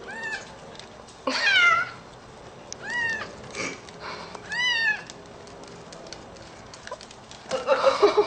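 Very young kitten mewing: four short, high-pitched mews about a second and a half apart, each rising and then falling in pitch, the second the loudest. A louder, noisier sound comes in near the end.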